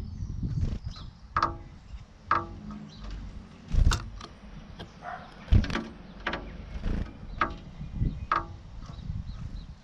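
Blue tit pecking at glass in sharp, irregular taps, about nine in ten seconds, some with a short ring: the bird attacking its own reflection.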